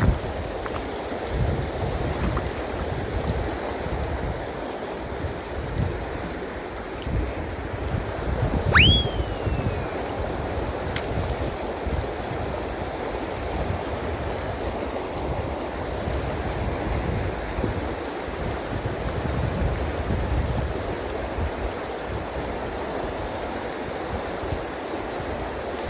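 Steady rush of river water, with wind buffeting the microphone. About nine seconds in, one short whistle that shoots up in pitch and then glides down over about a second; a single faint click follows shortly after.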